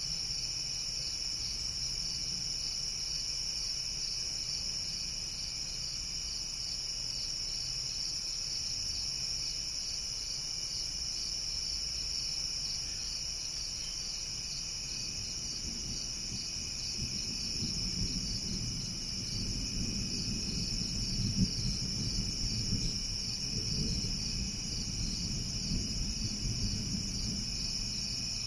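Steady chorus of crickets. About halfway through, a low rumble of distant thunder swells up and rolls on for roughly ten seconds.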